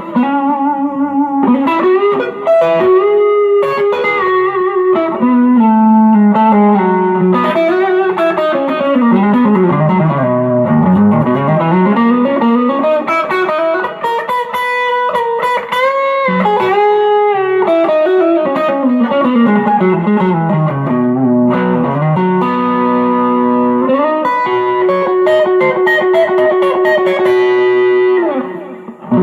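M-Musi Virgo Fusion electric guitar on its neck pickup, played through an amp: melodic single-note lines with bends and slides, twice running down to low notes and back up, about ten and twenty seconds in. The playing stops briefly just before the end.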